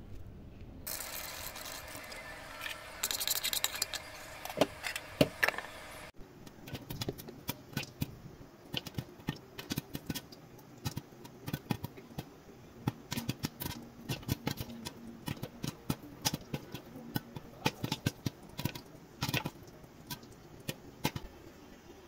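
Popcorn kernels popping in a pot under a glass lid: a quick, irregular run of sharp pops, several a second. This follows a steady hiss that stops abruptly about six seconds in.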